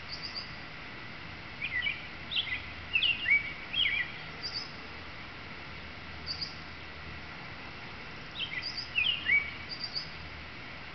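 Male American robin singing: two runs of short whistled phrases, about two seconds in and again near nine seconds in, with a few thin high notes between them.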